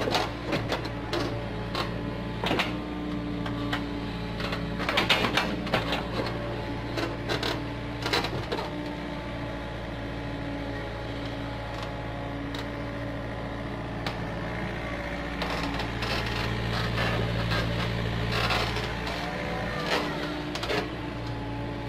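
Komatsu PC45 mini excavator's diesel engine running steadily under hydraulic load while digging, with repeated clanks and scrapes of the steel bucket and arm working in the soil. The knocks come thickest about five to six seconds in and again near the end, and the engine note grows stronger for a few seconds past the middle.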